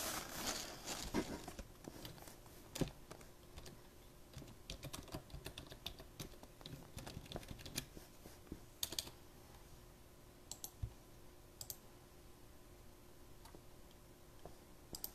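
Faint, irregular runs of light taps and clicks from fingers working a phone or computer, with a brief rustle of handling near the start.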